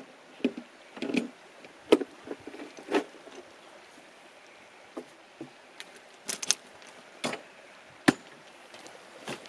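Scattered sharp clicks and knocks of a folding camp chair and its fold-out side table being opened and fitted into place. There is a cluster of quick clacks about six and a half seconds in, and two single hard knocks near the end.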